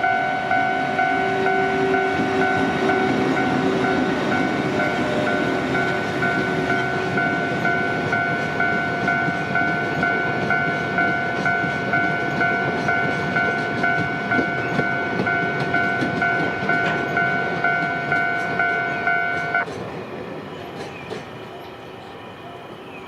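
Railway level-crossing alarm ringing in a steady, even rhythm while a train passes with a rumble and wheel clicks. The alarm cuts off suddenly near the end and the train noise fades.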